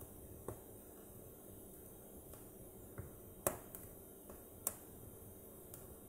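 Split logs burning in an open fireplace, crackling: scattered sharp pops over a faint steady hiss, the two loudest pops about a second apart just past the middle.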